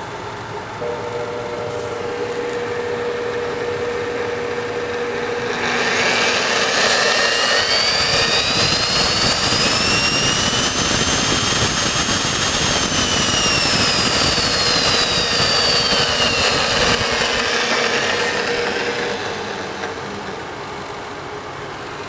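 Milwaukee 4210-1 magnetic drill press running with no load. A steady hum comes on about a second in, with its electromagnet base switched on. About six seconds in the drill motor spins up with a rising whine, runs at steady speed for a few seconds, then winds down with a falling whine as it coasts to a stop.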